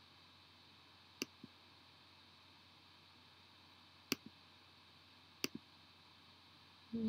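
Three computer mouse clicks, each a quick press-and-release pair, about 1, 4 and 5.5 seconds in, over faint steady hiss.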